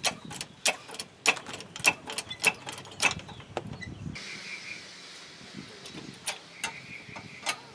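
A car jack being pumped to lift the car, giving a run of sharp clicking strokes about every half second. After these stop there are a few more scattered clicks.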